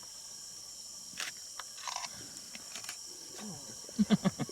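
A lion starts a fast run of short, deep, loud grunts about four seconds in, several a second. Before that only a steady high insect trill and a few faint clicks are heard.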